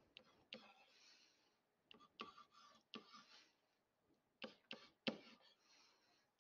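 Faint scratching strokes and light taps of a digital pen writing numbers on a screen, in short irregular bursts.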